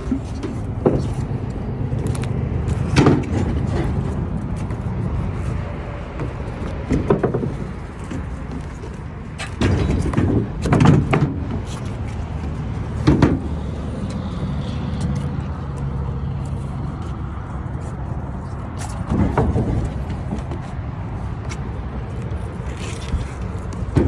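An engine idles steadily under a series of heavy thumps and knocks as truck tires and steel wheels are handled on a wooden trailer deck. The knocks come every few seconds, with the loudest cluster about ten seconds in.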